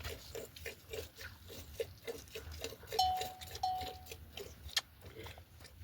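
Farm livestock close by: a run of short, irregular clicks and snuffling noises, with two brief steady high tones about three seconds in.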